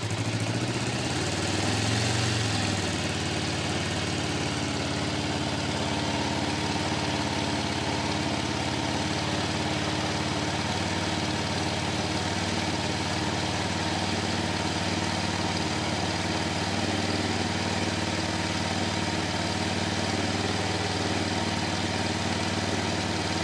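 Kawasaki Ninja 500 (EX500) parallel-twin engine idling cold with the choke about three-quarters on, at roughly 2,000 rpm. The revs rise briefly about two seconds in, then settle back to a steady idle. The owner suspects the carburettors of making it surge and cut out.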